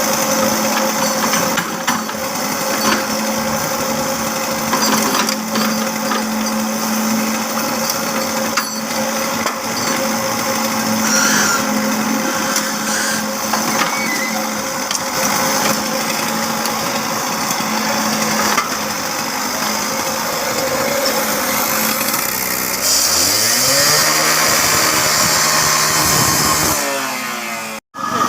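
A machine's motor running loudly with a steady hum. About three-quarters of the way through, its pitch rises as it speeds up, joined by a loud hiss, before the sound cuts off abruptly near the end.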